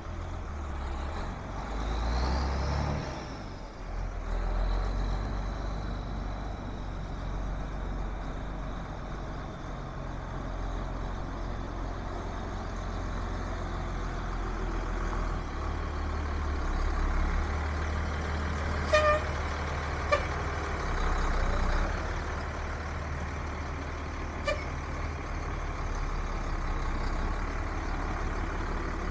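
1997 Ford F800 medium-duty flatbed truck's engine running as the truck drives slowly around a lot, with the engine note rising briefly about two to three seconds in. Three short sharp clicks come about two-thirds of the way through.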